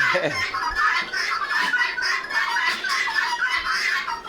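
A flock of poultry clucking, with many short overlapping calls throughout.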